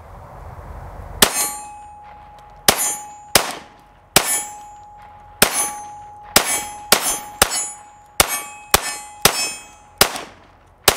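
A PSA 5.7 Rock pistol firing 5.7x28mm rounds in a rapid string of about a dozen shots, starting about a second in and spaced about half a second to a second apart. Each shot is sharp, and a steel target plate rings with a lingering metallic clang between shots.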